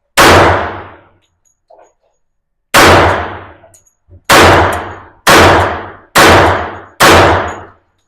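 Six shots from a Glock 30 pistol firing .45 ACP. After the first there is a pause of over two seconds, then the other five come about one a second. Each shot has a sharp crack and an echoing tail that fades over about a second.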